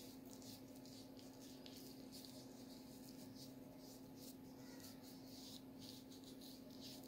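Faint, scratchy rubbing of a makeup-remover pad wiped over facial skin, over a steady low hum.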